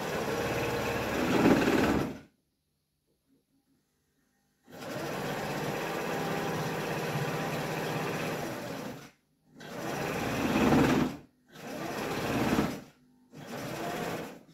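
Sewing machine stitching a gauze bag of wool, run in five stop-start spells: one of about two seconds, a longer one of about four seconds, then three short bursts close together near the end.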